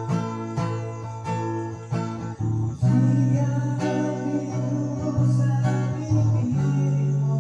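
Acoustic guitar strummed in a steady rhythm. About three seconds in, low held notes that step between pitches come in over it and are the loudest part.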